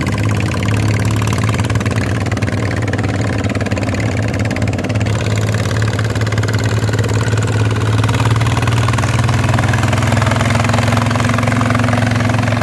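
Single-cylinder diesel engine of a walking tractor running steadily while working a flooded paddy, its pitch rising slightly about eight seconds in.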